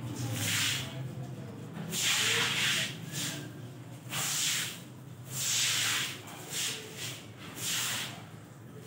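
A broom swishing across a wet concrete floor, pushing water, in about six separate strokes roughly every second and a half.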